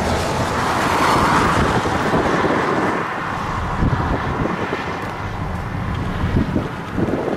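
Wind buffeting the microphone: a rough, irregular low rumble, with a swell of rushing noise about a second in.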